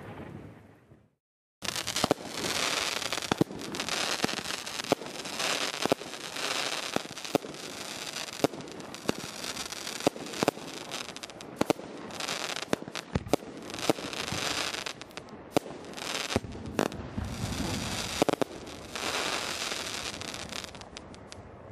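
Dominator "Hammer Time" consumer firework going off. After a brief silence, dense crackling starts about a second and a half in, cut through by many sharp pops, and keeps on.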